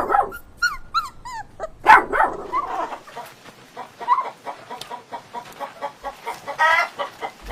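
Dog whimpering and yipping: a run of short high calls, a louder bark about two seconds in, and a high whine near the end.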